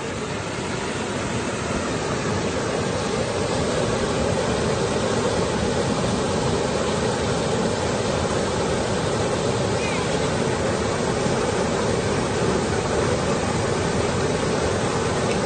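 Fast, muddy floodwater rushing over river rapids: a steady whitewater rush that grows a little louder over the first few seconds, then holds even.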